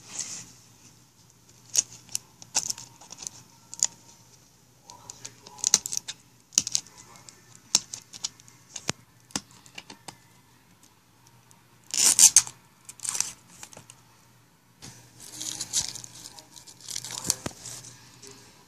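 A plastic label being torn and peeled off a juice bottle by hand, crinkling in bursts with scattered clicks from handling the bottle. The loudest burst comes about twelve seconds in, and a longer stretch of crinkling follows near the end.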